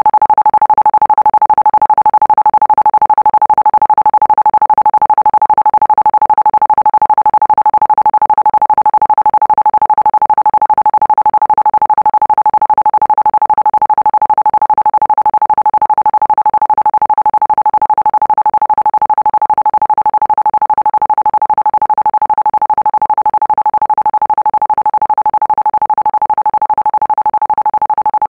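Isochronic tone: one steady electronic tone at a single unchanging pitch, pulsing on and off rapidly many times a second and fading slightly as it goes on.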